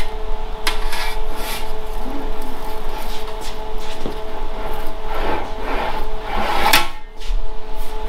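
A 1.2 mm cold-rolled steel sheet being handled and rolled through an English wheel: irregular metallic knocks and rattles as the panel flexes, with a sharper clank a little before the end. A steady hum runs underneath.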